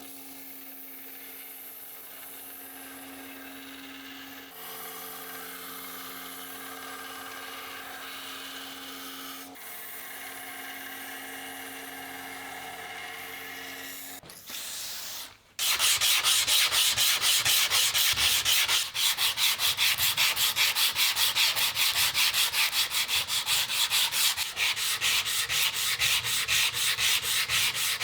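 A steady hum with a light hiss, then from about fifteen seconds in, loud rapid back-and-forth hand-sanding strokes on the steel knife blade, several strokes a second.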